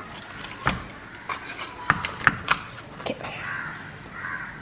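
Knife and carving fork knocking and scraping against a wooden cutting board while a roast chicken breast is carved: a handful of sharp, irregular taps.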